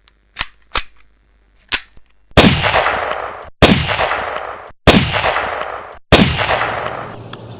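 Four gunshots about a second and a quarter apart, each with a long echoing tail that is cut off sharply just before the next, after a few small sharp clicks.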